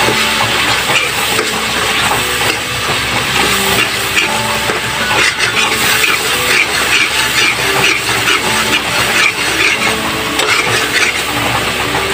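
Thick binagoongan sauce of tomato and shrimp paste bubbling in a pot as a ladle stirs through it, with a soft melody of held notes underneath.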